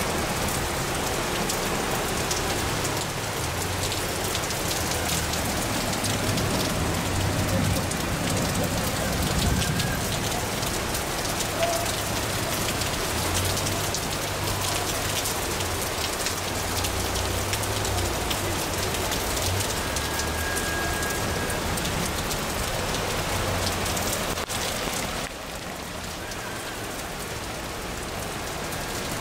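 Heavy thunderstorm rain pouring down steadily, a dense even hiss that drops a little in level near the end.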